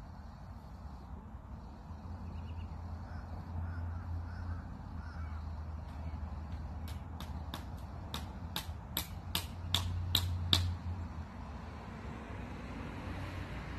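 Hammer knocking on wood, a run of about a dozen sharp strikes at roughly three a second, the hardest near the end.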